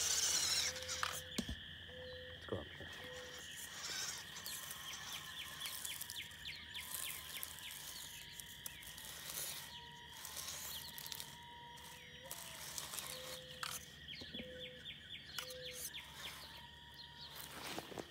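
Outdoor animal sounds: short pitched calls repeating every half second or so, and bursts of quick chirps, over a steady high insect drone. A few brief knocks and a rustle about a second in.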